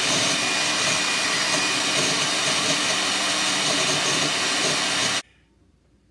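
Electric valve-seat grinder spinning a stone against a valve seat in a Caterpillar Sixty cylinder head: a steady motor whine under a grinding hiss, which cuts off abruptly about five seconds in.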